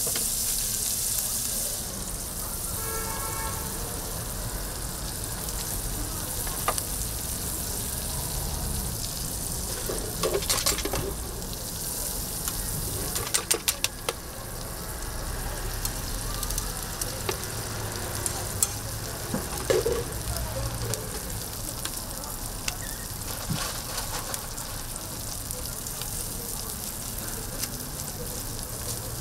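Sausage and then beaten egg frying in oil on a flat steel griddle, a steady sizzle. Scattered clicks, and a quick run of sharp clicks about halfway through.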